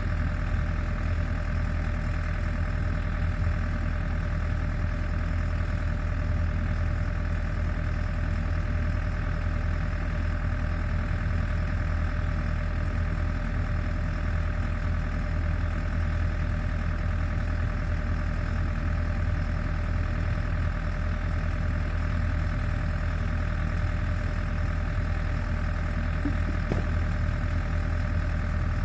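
Champion portable generator's engine running steadily at a constant speed.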